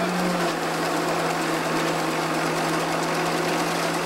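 Stationary threshing mill running with a steady mechanical hum. Its pitch drops slightly about half a second in.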